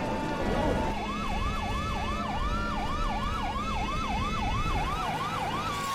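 Fire engine siren sounding a fast yelp, about three rising-and-falling whoops a second, over a low rumble. Right at the end it slows into a long falling wail.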